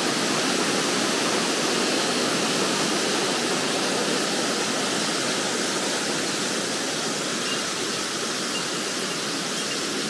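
Zengoro Falls, a large mountain waterfall, pouring in a steady, even rush of water that eases slightly toward the end.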